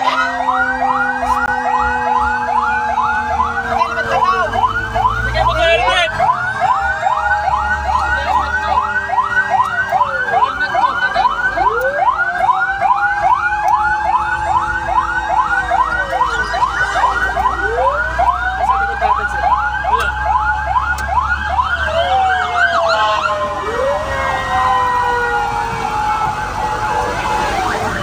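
Several fire truck sirens sounding together: a fast yelp cycling about three times a second over slower wails that rise and fall every few seconds. Heard from inside a fire truck's cab, with the engine's low rumble underneath.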